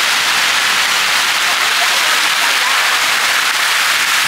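Outdoor fountain pool with rows of spray jets and a small stone cascade, water splashing down into the pool in a loud, steady rush.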